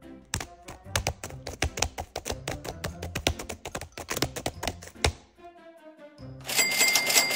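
Rapid typing on a laptop keyboard, a dense run of key taps, over background music. About six and a half seconds in, the typing stops and a loud, fast mechanical rattling with steady high whines begins.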